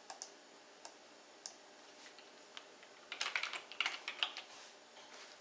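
Computer keyboard being typed on: a few single clicks spaced out at first, then a quick run of keystrokes about three seconds in.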